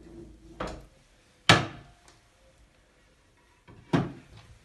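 Wooden knocks and thuds as a Singer treadle sewing machine is folded away into its cabinet and the hinged wooden top closed: three thuds, the loudest about a second and a half in.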